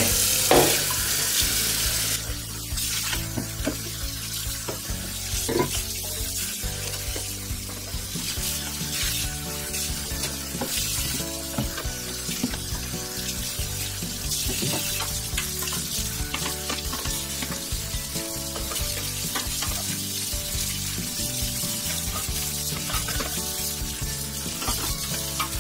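Tap water running and splashing over a nonstick air-fryer basket and drawer as the dish soap is rinsed off. It is loudest in the first two seconds, then runs on more softly with irregular splashes.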